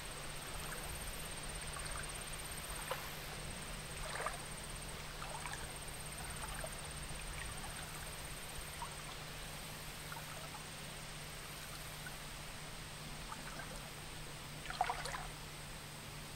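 Faint trickle and lapping of a slow river against streamside rocks, over a steady low hum, with a few soft clicks and knocks, the loudest near the end.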